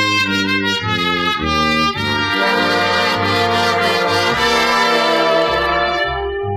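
Easy-listening orchestral music from a 1960 LP, led by a brass section of trumpets and trombones over a bass line. About two seconds in it swells into a long, full held chord.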